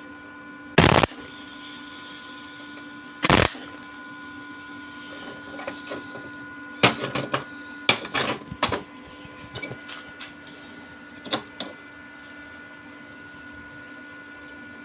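Two short arc-welding tack bursts, about a second and three and a half seconds in, tacking steel forks in place, followed by a run of sharp metal clicks and knocks. A steady electrical hum runs underneath.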